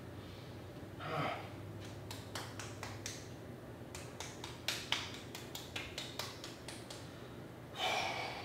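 A man's sharp, heavy exhales during a workout, about a second in and again near the end, with a quick run of light clicks and knocks between them.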